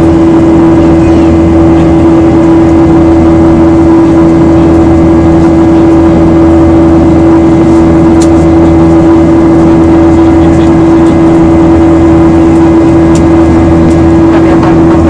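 Boeing 737-800's CFM56-7B turbofan engine heard inside the cabin from a seat beside the engine in flight: a steady, loud drone with a strong, unwavering hum tone.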